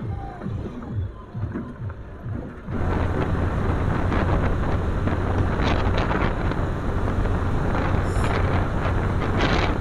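Bajaj Pulsar 220F single-cylinder motorcycle riding at low speed. About three seconds in, the sound jumps to highway cruising, where heavy wind rush on the microphone largely covers the engine.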